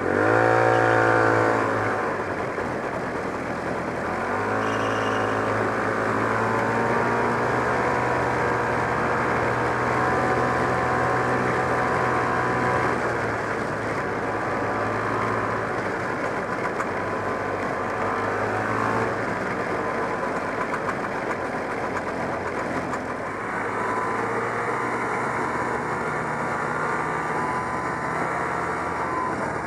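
Polaris Mustang snowmobile's JLO two-stroke engine under throttle while riding. It revs up sharply at the start, climbs again about four seconds in, then runs steadily at speed, easing off briefly about three-quarters of the way through before picking back up.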